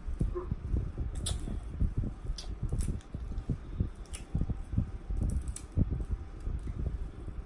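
Close-miked chewing of crunchy fried catfish: irregular soft mouth sounds about twice a second, with a few sharp crunches of the breading, over a steady low hum.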